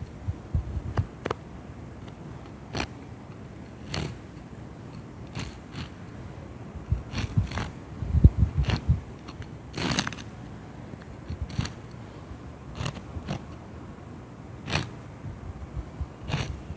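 Cockroaches chewing: irregular dry clicks and crunches, some sharp and loud, with short gaps between.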